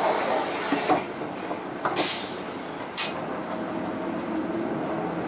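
Mitsubishi Fuso Aero Midi KK-MK23HM bus standing still with its diesel idling underneath, while its compressed-air system vents a long hiss that fades about a second in. Two short sharp bursts of air follow, about a second apart.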